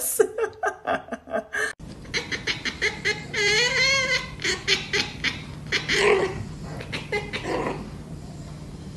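People laughing in rapid bursts. Then a black cat gives one long meow with a wavering pitch, with more laughter around it.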